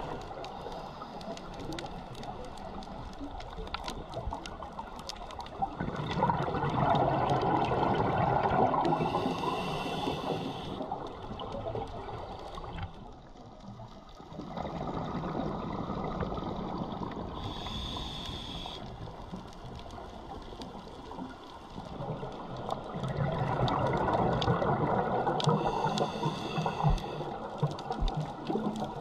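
A scuba diver breathing underwater through a regulator. Exhaled bubbles rush past in long swells, and a short regulator hiss comes about every eight seconds.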